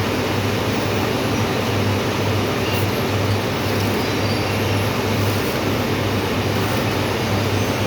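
Electric arc welding on steel: a steady hiss over a low hum that swells and dips at an even pace.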